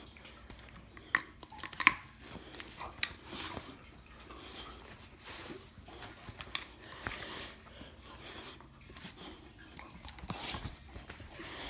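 A dog mouthing and tugging at a ring toy: sharp clicks and knocks of the toy, the loudest about two seconds in, with scattered chewing and scuffling.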